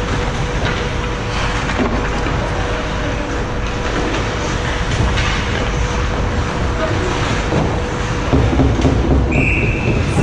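Ice hockey rink ambience during play: a steady noisy arena din of skates, sticks and spectators, with faint scattered clicks. A short high referee's whistle sounds near the end.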